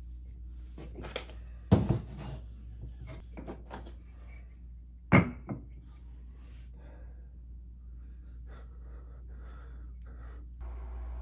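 Wooden carving blanks set down on a table and onto one another as they are stacked. There are two loud knocks, about two and five seconds in, among lighter wooden clacks.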